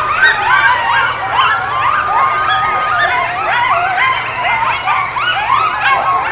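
Many animals calling at once: a dense chorus of overlapping high whines and yelps that keep rising and falling in pitch, with one long held call a second or two in.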